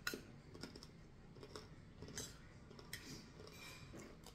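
Faint, scattered small clicks and eating noises: a plastic spoon tapping and scraping on a plate, with quiet chewing.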